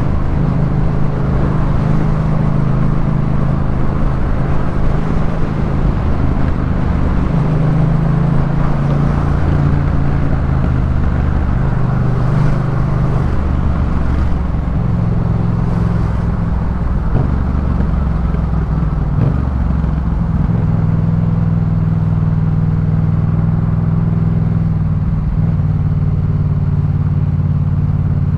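Yamaha MT-07's 689 cc parallel-twin engine through a Jeskap K4 full aftermarket exhaust, running at a fairly steady pace while ridden, its deep exhaust note shifting in pitch a few times.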